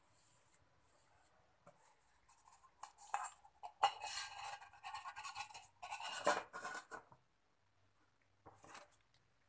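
A hand tool scraping and scratching on a thin metal can in a run of irregular strokes, loudest from about three to seven seconds in, with one short scrape near the end.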